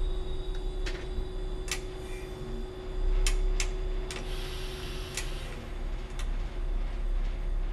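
Driver's cab of a Y-train diesel railcar under way: a steady low running rumble with sharp irregular clicks and ticks, a close pair of them a little past three seconds. A steady hum stops about five seconds in.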